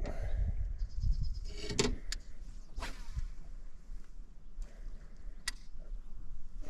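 Low wind rumble on the microphone, with a brief mechanical whirr about a second in and a few sharp knocks scattered through.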